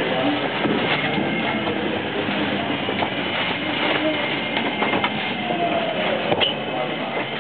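JR West 225 series electric train with Toshiba traction equipment running slowly into a station, heard from inside the car: steady running noise with scattered wheel clicks over the rails. About five to six seconds in, a motor tone falls in pitch as the train slows.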